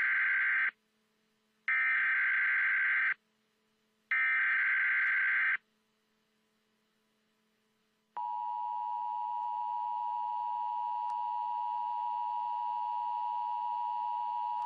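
Emergency Alert System broadcast tones: the tail of one data burst of the digital header, then two more bursts, each about a second and a half long with a second of silence between. About eight seconds in, the steady two-tone attention signal starts and holds.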